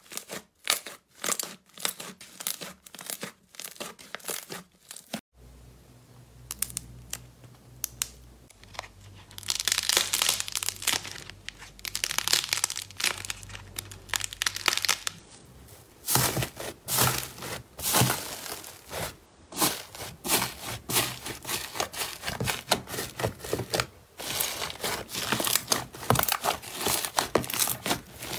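Hands squeezing, kneading and pressing slime: dense sticky crackles and pops that come in quick bursts. The sound changes twice, about five and sixteen seconds in, as one slime gives way to another.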